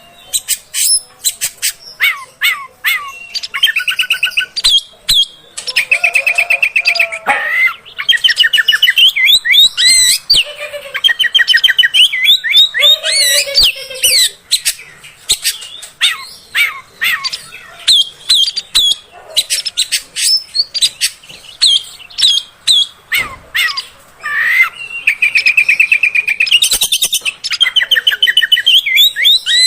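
Oriental magpie-robin (kacer) singing continuously: a varied run of sharp whistled notes, quick pitch slurs and rapid buzzy trills, broken by short pauses.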